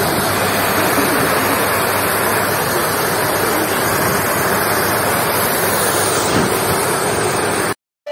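Rain-swollen floodwater pouring over a dam's overflow weir, a steady rush of falling water that cuts off suddenly near the end.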